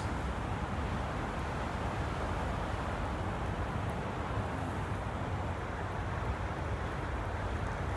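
Steady wind blowing outdoors, with low rumbling wind noise on the microphone.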